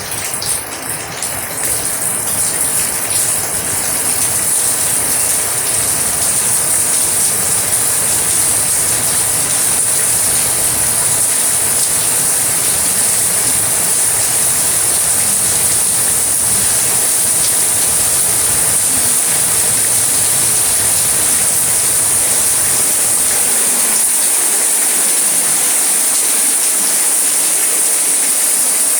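Steady rain, a dense even hiss that swells in over the first few seconds and then holds level.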